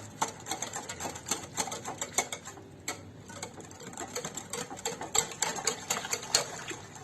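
Rapid clicking taps of a utensil against a bowl as a thick yogurt, tahini and garlic sauce is stirred, with a short pause about three seconds in.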